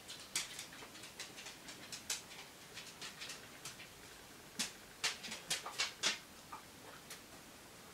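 A dog sniffing and panting faintly: scattered short soft puffs and clicks, busiest between about four and a half and six seconds in.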